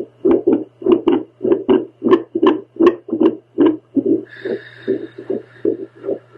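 A woman's own heartbeat picked up by a handheld home fetal doppler: fast, slightly uneven pulses, about two to three a second, over a steady low hum. A brief higher tone sounds about four seconds in.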